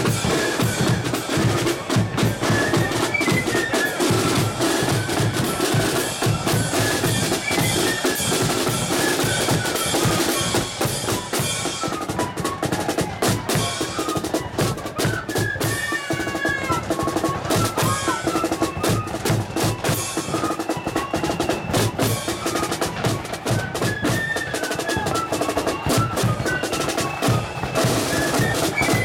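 Marching flute band playing a tune: flutes carry the melody over side drums and a bass drum.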